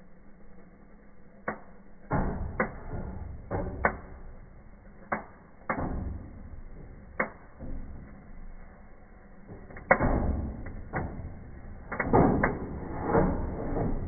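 Cardboard firework fountain burning with a rushing noise, broken by about a dozen irregular sharp cracks and bangs; the loudest crack comes about ten seconds in, with a cluster near the end.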